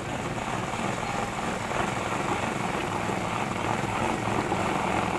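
Aerosol can of chain cleaner spraying onto a motorcycle drive chain in a steady hiss, degreasing the chain.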